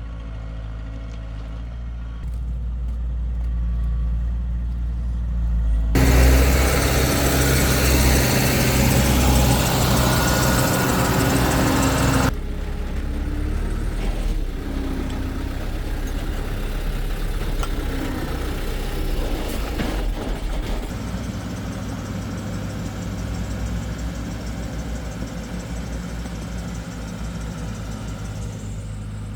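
Heavy diesel construction machinery engine running steadily with a low hum. About six seconds in, a loud rushing noise starts abruptly and stops just as suddenly some six seconds later.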